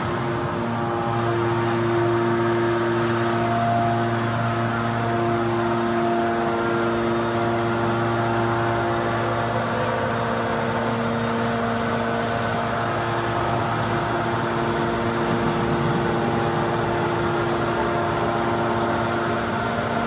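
Hydraulic power unit of a 500-ton scrap metal baler running steadily: an even machine hum with a whine of several held tones.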